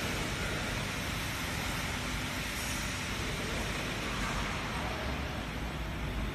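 Steady, even noise of factory machinery, a hiss and rumble with no clear rhythm or tone.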